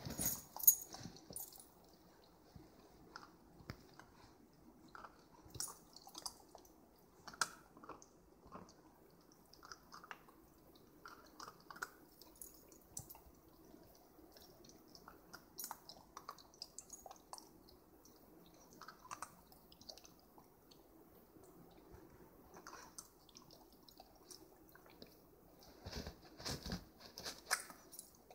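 Keeshond puppy licking and chewing an ice cube: faint, intermittent mouth sounds and small clicks, with louder bursts about a second in and again near the end.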